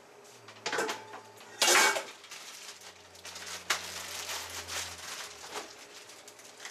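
Chopped bacon sizzling and crackling in a hot sauté pan, with a few sharp clatters of cookware, the loudest just under two seconds in.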